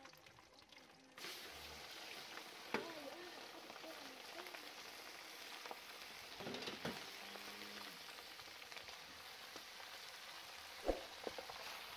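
Beef frying in hot oil in a pan: a steady sizzle that starts abruptly about a second in, with a few sharp knocks from the pan.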